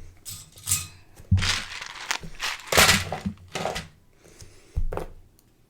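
Loose Lego pieces being handled and moved, small plastic parts rustling and knocking in a few irregular bursts.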